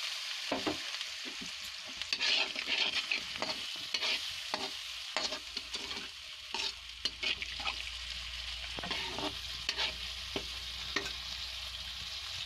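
Spiced onion masala sizzling in a kadhai, with a splash of water added, as it is fried down. A metal slotted spoon stirs it, scraping and clicking against the pan in irregular strokes over a steady hiss.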